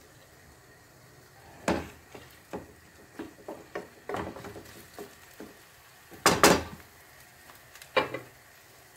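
Wooden spatula knocking and scraping against a nonstick frying pan as egg is spread over grated potatoes: a string of light knocks, with the loudest, a double knock, about six seconds in.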